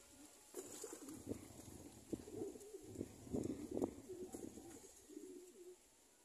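Domestic pigeons cooing: a run of low coos that starts about half a second in and stops shortly before the end.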